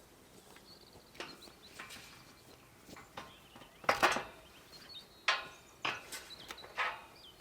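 A series of irregular knocks and scuffs, about half a dozen, the loudest about four seconds in, with faint birdsong behind them.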